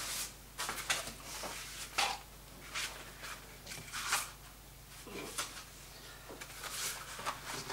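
Sheets of watercolour paper being handled and swapped on a board: a string of short rustles and scrapes, about a dozen over several seconds.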